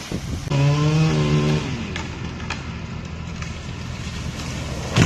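A felled tree crashes down into a pond: one loud, sudden impact with a splash about five seconds in. Before it there is a held tone lasting about a second, and the engine of a tree-service truck runs underneath.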